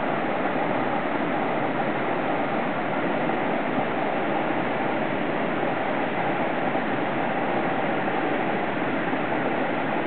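Steady rush of a rocky mountain stream pouring over small cascades, running high after heavy rain.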